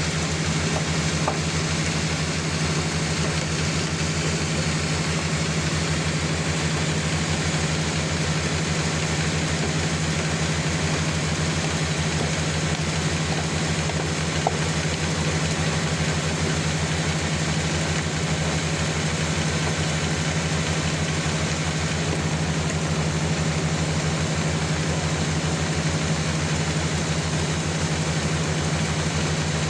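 Band sawmill running steadily, its engine giving a fast, even beat, with two small ticks about a second in and midway.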